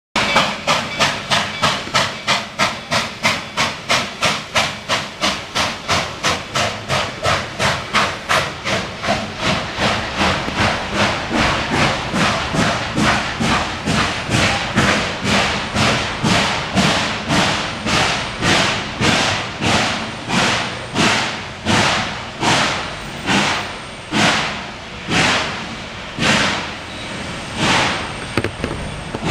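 Reading 2102 steam locomotive exhausting in rhythmic chuffs, each a sharp hissing beat. The beat slows steadily, from about four chuffs a second to about one every second and a half near the end.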